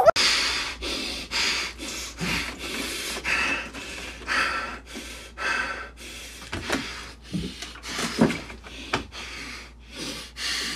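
A man breathing hard through his nose in short, rhythmic bursts of about two a second, with a few sharper snorting exhales in the second half: the sound of someone straining through an intense workout.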